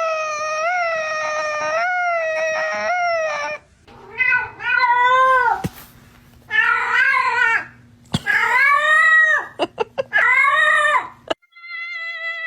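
Domestic cats meowing and yowling: one long drawn-out meow lasting over three seconds, then four shorter wavering meows of about a second each. Near the end a steady, even-pitched call begins.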